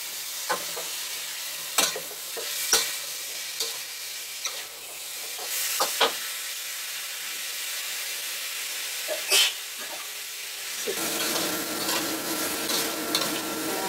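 Chayote sticks sizzling in hot oil in a wok, with a metal spatula clicking and scraping against the pan as they are stirred. A steady hum joins about eleven seconds in.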